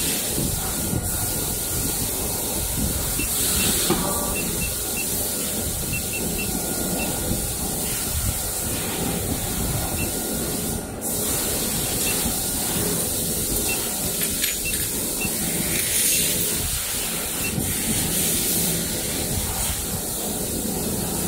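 Steady hiss and rumble of running injection molding machinery.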